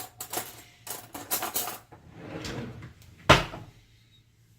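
Kitchen drawer knocks and cutlery clatter as a fork is fetched: a run of short clicks and rattles, then one louder knock, like a drawer shutting, about three seconds in.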